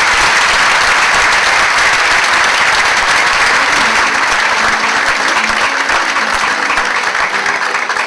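Audience applauding loudly and steadily, easing off slightly near the end; from about halfway through, the band's instruments begin to sound faintly beneath the clapping.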